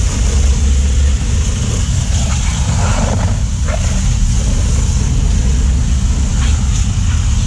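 Power washer running steadily: a constant low motor drone under the hiss of the water spray.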